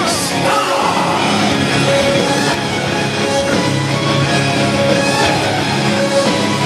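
Loud heavy rock entrance music with electric guitar and drums, playing without a break as a wrestler walks out.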